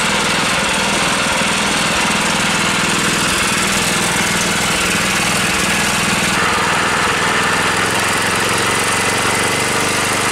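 11 hp single-cylinder air-cooled petrol engine running steadily, belt-driving the car wheel of a homemade bandsaw.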